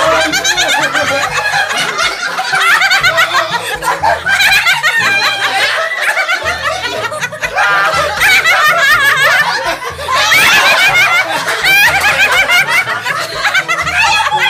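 Several women laughing loudly together, many voices overlapping, over background music with a bass line.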